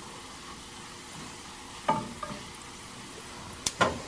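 Chopped garlic sizzling gently in oil in a small saucepan over medium-low heat while a wooden spoon stirs it. A few sharp knocks of the spoon against the pan come about two seconds in and twice near the end.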